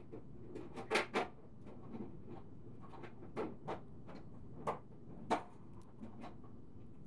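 A cat biting and chewing a crisp lettuce leaf: irregular crunches, loudest about a second in and again about five seconds in.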